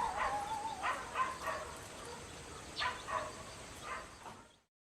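Small dog whining, then giving a few short, high yips.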